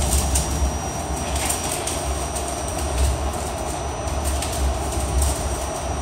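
Interior of an R68A subway car running along the line: a steady low rumble of wheels on rail with a few faint clicks, and a thin steady high tone over it.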